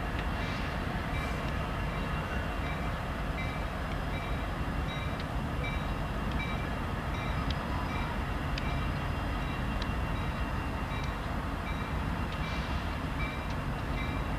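Union Pacific train rolling past, a steady rumble of wheels on rail. Short high tones repeat at an even pace throughout.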